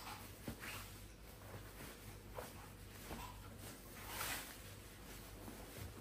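Faint household handling sounds: a few light taps and a short swishing rustle a little past the middle, over a low steady hum.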